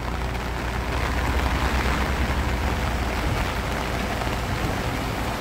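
Creek water rushing down a concrete channel and over its low step weirs: a steady rushing sound.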